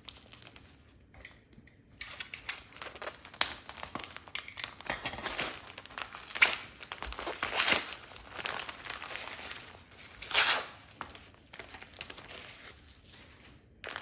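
Packaging being crinkled and torn open by hand, irregular rustling and crackling that starts faint and grows busier, with a few louder surges of crinkling in the middle.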